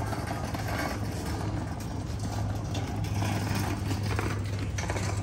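Stroller wheels rolling over concrete and brick paving, a steady rough rumble with faint clatter, over a constant low hum.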